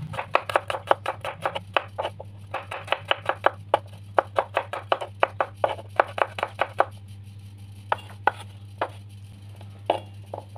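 Large kitchen knife slicing garlic cloves on a wooden cutting board: quick sharp knocks of the blade on the board, about five a second, thinning to a few scattered strikes for the last three seconds.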